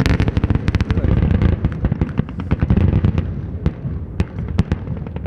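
Rapid gunfire and the deep booms of explosions from a military live-fire exercise. The shots come thick and fast for about the first second and a half, then thin out to scattered single shots as the explosions go on underneath.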